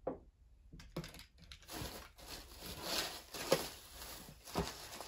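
A small stone set down on a tabletop with a single tap, then irregular rustling and crinkling as a hand digs through shredded paper filler in a cardboard box.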